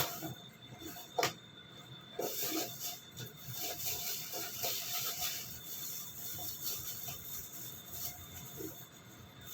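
A person eating: chewing and mouth sounds in short, soft bursts, with two sharp clicks about a second apart near the start.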